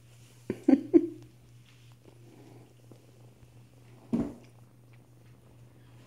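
Kittens playing on a lap: a few short, loud sounds come about half a second to a second in and once more about four seconds in, over a steady low hum.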